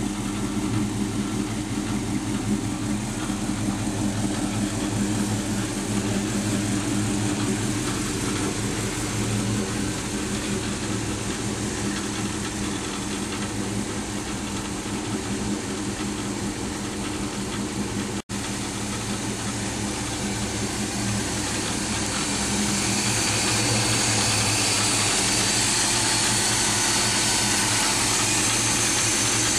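1984 Chevrolet C10 pickup's small-block V8 idling steadily. Near the end it turns louder and hissier, heard up close over the open engine bay.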